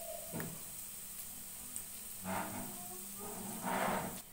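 Minced garlic and crushed black pepper sizzling in melted margarine in a non-stick pan. A spatula stirs them through, making a brief knock about half a second in and two louder swells of scraping and sizzle later on.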